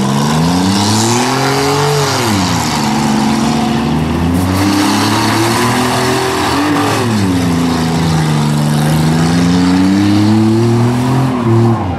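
Demolition-derby minivan engines revving hard and dropping back several times as the vans push and shove against each other, over a steady noisy wash.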